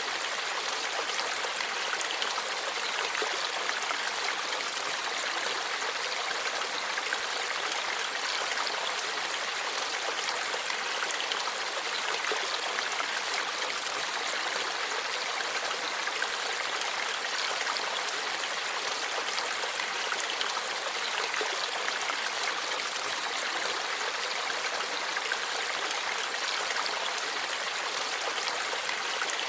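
Shallow forest stream flowing and babbling steadily over stones, a continuous rushing splash with no break.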